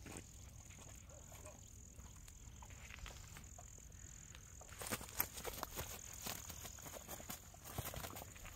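Faint outdoor background for the first half, then about halfway in a run of irregular clicks, knocks and rustles: handling noise as a caught rohu and a nylon net bag are moved about on the grass.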